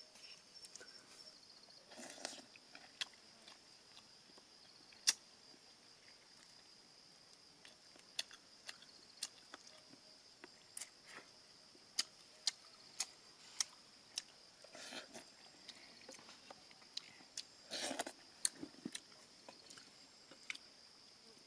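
A steady high insect chirring, with scattered sharp clicks and taps of bamboo being handled, and a few brief rustles.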